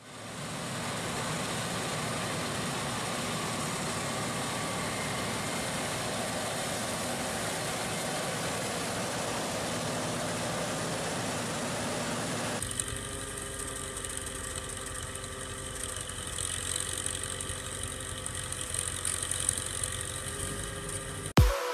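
Engine of a working machine running steadily. About two-thirds of the way through it cuts abruptly to another machine's steady hum with a high whine.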